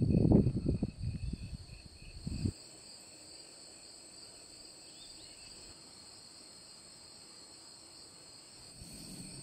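Crickets chirping in a steady, high, unbroken chorus. A low noise fades over the first two seconds and stops abruptly.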